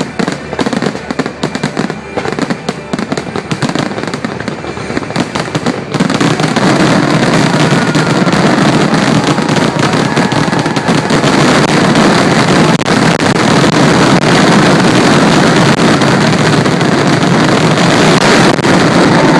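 Fireworks going off in rapid, overlapping bangs and crackles, which jump about six seconds in to a louder, unbroken barrage.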